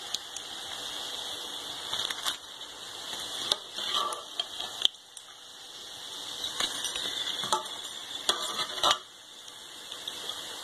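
Hot oil sizzling in a frying pan as breaded, fried bread-chicken pieces are lifted out with a perforated steel skimmer. Scattered clicks and taps of the skimmer against the pan and plate come through it.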